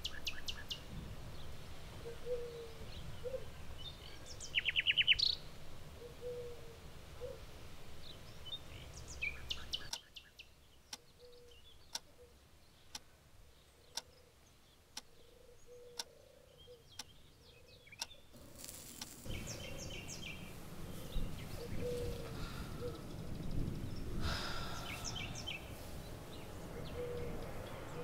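Background ambience with birds chirping, including a short rapid trill about five seconds in. About ten seconds in it drops to a quieter stretch with a sharp tick about once a second, then the noise and birdsong return for the last ten seconds.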